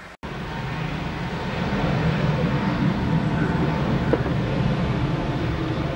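Jet engine noise from a Boeing 737-700's CFM56-7B turbofans at takeoff power during the takeoff roll: a steady, rumbling jet noise that grows louder over the first couple of seconds.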